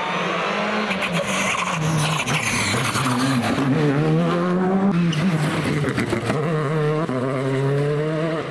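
Rally cars at full speed on a tarmac stage, a Škoda Fabia R5 first, each with a turbocharged four-cylinder engine revving up and dropping through quick gear changes. Tyres squeal as the car slides through a corner in the first few seconds.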